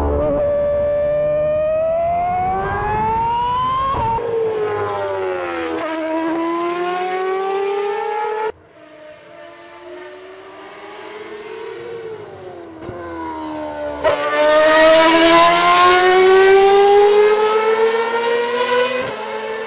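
Formula 1 car engine at high revs, its pitch climbing steadily through each gear and dropping sharply at the upshifts. After an abrupt cut, the car is heard from trackside, growing louder and rising in pitch to its loudest as it passes close, before the sound cuts off near the end.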